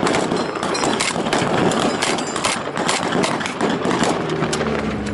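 Rapid, irregular blank gunfire, many sharp shots in quick succession, over a continuous loud engine drone. Near the end the shots thin out and a low, steady engine hum comes through.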